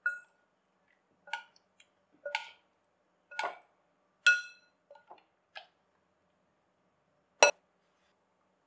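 Metal spoon clinking against a glass mixing bowl while boiled potato wedges are stirred into a thick batter: about eight separate ringing taps, the loudest near the end.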